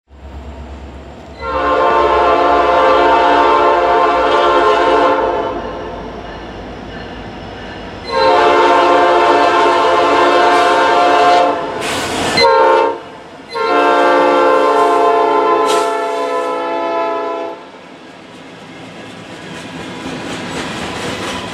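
Norfolk Southern freight locomotive's air horn sounding the grade-crossing signal over the rumble of its diesel engines: two long blasts, a short one, then a final long one. After the horn stops, covered hopper cars roll past with a clatter of wheels over the rail joints.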